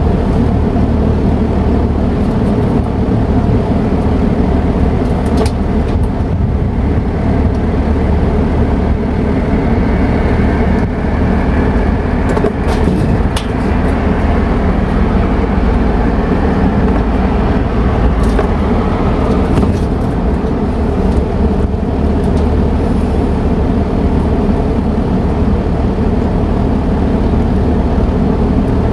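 Steady mechanical hum of air-conditioner outdoor units running, with a few faint clicks.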